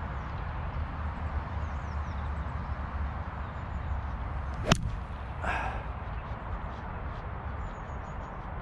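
A single sharp strike of a pitching wedge on a golf ball, a little under halfway through. The shot is hit fat: the club takes a big chunk of turf.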